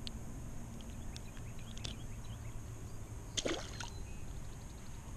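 A bluegill tossed back into the lake, landing with a small splash about three and a half seconds in, over a steady low rumble and a few faint handling ticks.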